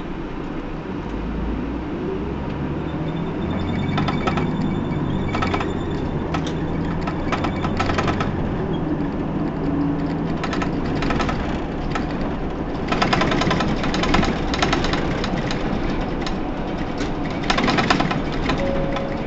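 Hino PDG-KV234N2 city bus's diesel engine running as the bus drives, heard from inside the passenger cabin, its pitch stepping up and down in the first half. Clusters of sharp clicks and rattles come and go, the busiest a little past the middle and again near the end.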